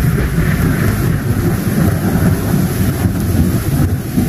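Storm sound effect: a loud, steady low rumble of thunder and wind with a hiss above it.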